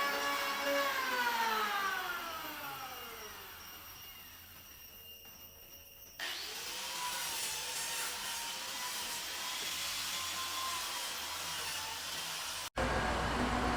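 An electric power tool's motor whining steadily, then switched off and spinning down, its whine falling in pitch over about four seconds. About six seconds in, a power tool starts abruptly and runs with a wavering whine over a hiss. Near the end it cuts off sharply into a louder, rumbling noise.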